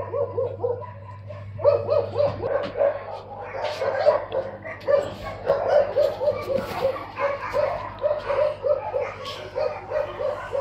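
A dog barking in a rapid, steady series of short yaps, about three a second, with a brief pause near the start.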